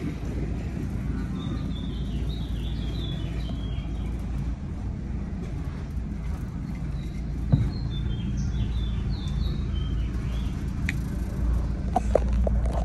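Mercury 3.0 boat engine idling steadily in gear, a low even hum. Small birds chirp in two short bursts over it.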